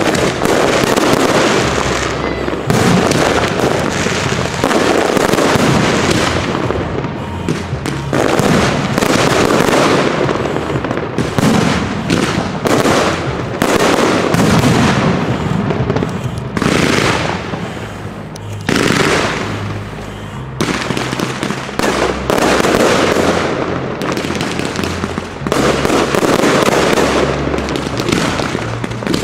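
Aerial fireworks display: a dense, loud run of shell bursts, with many bangs in quick succession.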